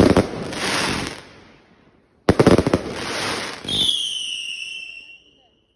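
Retribution firework barrage firing: a bang whose stars crackle and fade over about a second, then after a short pause another bang with dense crackling, followed by a whistling shot whose whistle falls slightly in pitch before cutting out.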